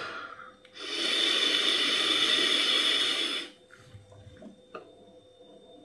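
A long draw on a Smok Nord GT vape pod set to 40 W with the airflow fully open: a steady rushing hiss of air pulled through the pod for about three seconds, then it stops and only faint small clicks remain.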